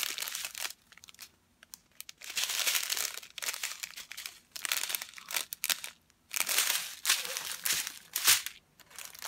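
Crinkling of a strip of small sealed plastic bags filled with diamond painting drills as it is handled and unfolded. The crinkling comes in several bursts with short pauses, with one sharp tick near the end as the strip is laid flat.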